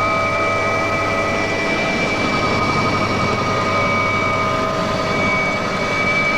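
Mi-2 helicopter's twin turboshaft engines and rotor heard from inside the cabin in flight: a steady, loud running noise with a constant high whine.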